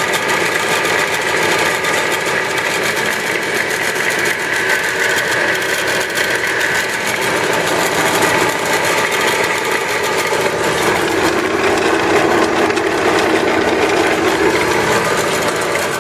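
A Clausing 20-inch bench drill press running on its 1.5 hp, 115-volt motor, making a steady motor hum with belt and pulley whine, and the whine's tone changes about two-thirds of the way through. It is running stuck on one speed because its broken variable-speed control does not work.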